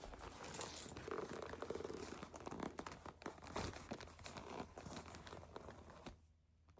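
Handling of a lambskin leather flap handbag: faint, irregular rustling and crinkling that stops suddenly near the end.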